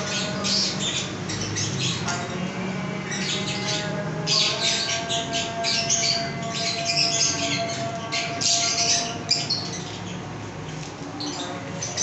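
A flock of caged lovebirds, Fischer's and lutino lovebirds among them, squawking and chattering in many short, shrill calls, busiest from about four to nine seconds in. A steady hum runs underneath.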